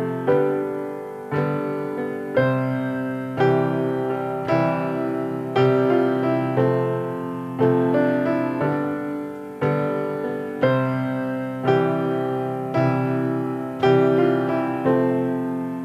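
Instrumental piano passage of a slow ballad: full chords struck about once a second, each ringing out and fading before the next.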